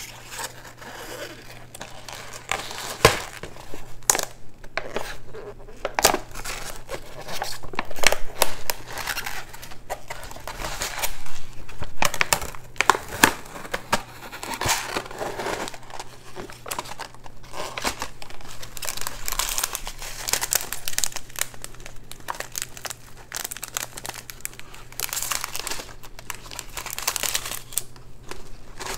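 Food wrapping and packaging crinkling and tearing as it is handled and opened, with irregular sharp crackles throughout.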